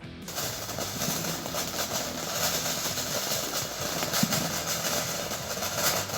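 Garden firework fountain spraying sparks: a steady, loud hiss with fine crackling that starts suddenly a moment in.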